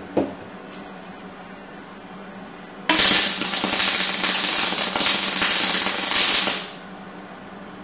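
Hobart Handler 175 gas-shielded MIG welder's arc on a steel tube: a short arc strike just after the start, then a continuous weld of about four seconds, crackling steadily, that stops abruptly.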